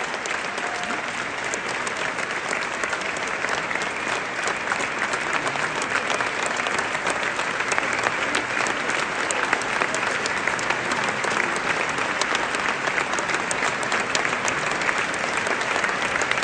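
Opera-house audience applauding steadily, a dense patter of clapping that thickens a little after the first half.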